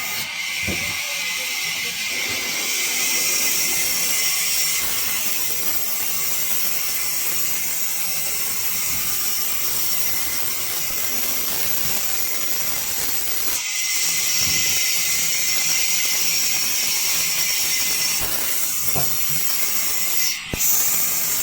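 Sawmill saw cutting through wood, a steady loud hissing rasp that dips briefly twice, about two-thirds of the way through and again near the end.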